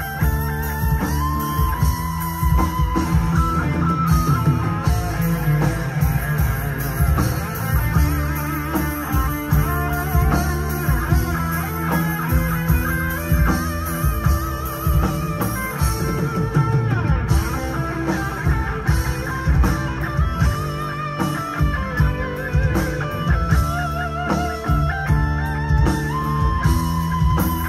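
Live rock band playing: electric guitars, bass and drum kit, with a lead guitar line of held notes and bends over the steady beat.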